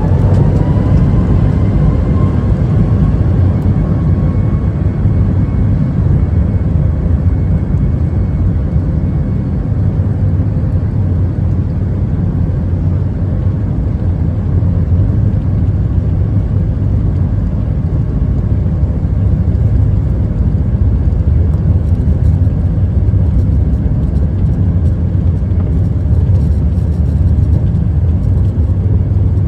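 Boeing 737 MAX 8's CFM LEAP-1B jet engines spooling up. A rising whine climbs over the first second or two and then holds, under a loud, steady, low rumble of engines and airframe, typical of takeoff power.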